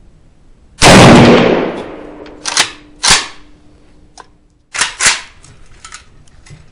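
Rifle fire from a milled AK rifle in 7.62×39: one very loud shot about a second in that rings on for about a second, then two pairs of shorter, sharper bangs around three and five seconds in.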